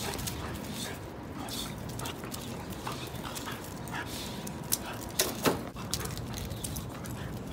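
Two pit bull puppies play-fighting, making short vocal sounds through the tussle, with a few sharp, louder ones about five seconds in.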